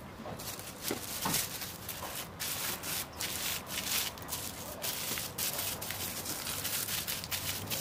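Thin clear plastic film crinkling and rustling in irregular crackles, starting about half a second in, as it is spread over rolled dough on a tray and pressed down with the hands.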